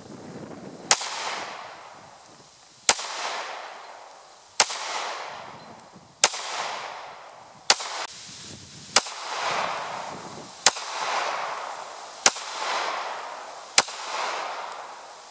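Smith & Wesson M&P9c 9mm compact pistol firing nine single shots at a slow, steady pace, about one every one and a half to two seconds, each trailing off in a long echo.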